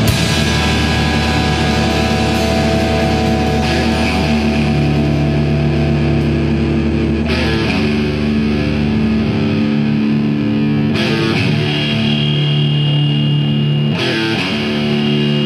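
Noise rock / post-hardcore recording: distorted electric guitars holding sustained chords. The low end drops out about nine seconds in.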